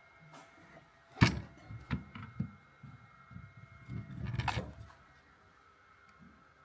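Handling noise from a tool being picked up and put down: a sharp knock about a second in, a few lighter clicks, then a short stretch of knocking and rustling near the four-second mark.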